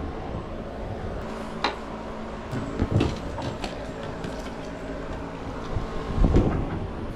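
Ride noise from a bicycle-mounted camera: a steady rumble of rolling and wind, with a few knocks and rattles from bumps, the loudest about six seconds in.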